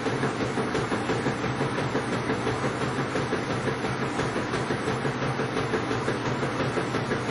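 Washing machine on its spin cycle: the drum spinning at speed over a steady motor hum, with a fast, even pulsing.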